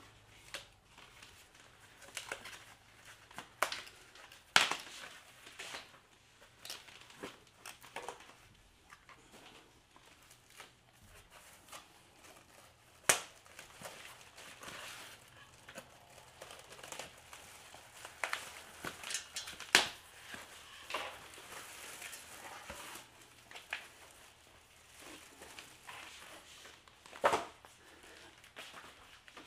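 Cardboard and plastic packaging rustling and crinkling as it is pulled off a bicycle frame, with scattered clicks and a few sharp knocks.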